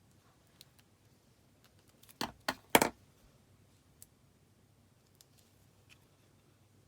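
Small craft scissors snipping, three quick cuts a little over two seconds in, with faint handling ticks around them.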